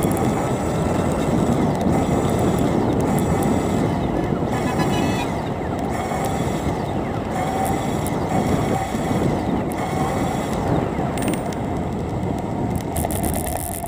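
Steady rushing wind on the microphone and road rumble from a bicycle ride along a cycle lane, with car traffic running alongside.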